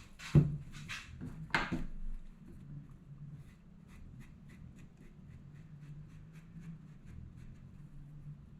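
Two sharp knocks near the start, then a steady run of light rubbing strokes, about two or three a second: a foam brush spreading wood glue.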